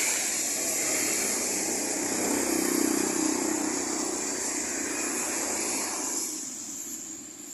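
Large coach driving past on a wet road: engine hum under loud tyre hiss. It fades away about six seconds in.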